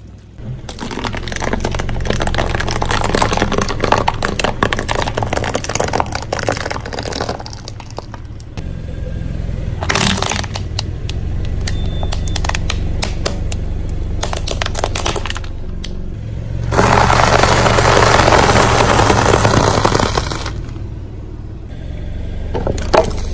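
Car tyre rolling slowly over concrete and crushing things beneath it, with dense gritty crackling and crunching in two long stretches, over the low steady running of the car's engine.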